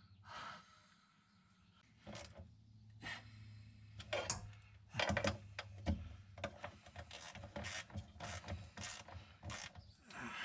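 Irregular metallic clicks, knocks and clatter of hand tools working on a VW T3's gear shift linkage, growing busier about halfway through, over a low steady hum.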